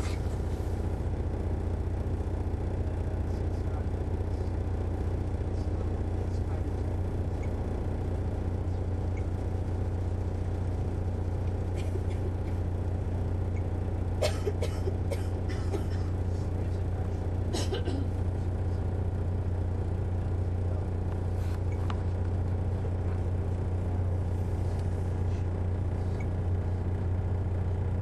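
The Detroit Diesel Series 60 engine of a 2001 MCI D4000 coach running steadily, heard from inside the bus as a constant low drone. A few short clicks or rattles come through about halfway in.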